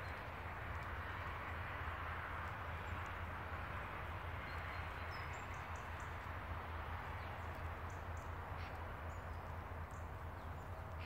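Steady outdoor background noise with a low hum, with a few faint, short high chirps from small birds scattered through it.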